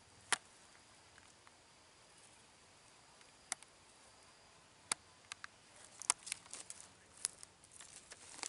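Dry twigs and fallen palm fronds snapping with sharp single cracks a second or more apart. From about six seconds in they give way to a thicker rustling and crackling of dry leaf litter.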